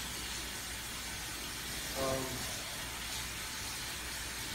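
Kitchen tap running steadily into the sink while dough is washed off hands under it, a steady hiss of water. A brief pitched sound comes about two seconds in.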